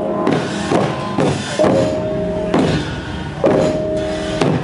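Northern Thai klong pu ja drum-and-gong ensemble playing: hanging gongs struck with padded mallets, each strike ringing on in a steady tone, over drum beats.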